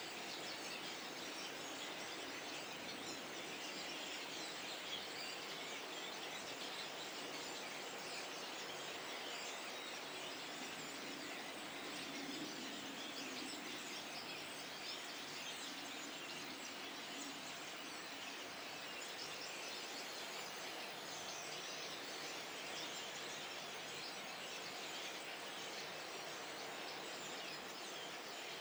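Flock of starlings chattering steadily, many birds calling at once in a dense, continuous mix.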